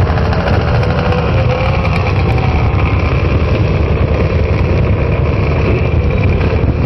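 Racing motorcycles idling together on a starting grid, heard up close from a Honda NT650 Hawk GT's V-twin, with a steady loud rumble and a few revs rising and falling.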